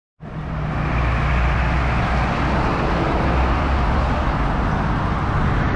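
Wind rushing over an action camera's microphone as a bicycle rides along a road, a steady noise with a heavy low rumble. It starts after a moment of silence and builds over the first second.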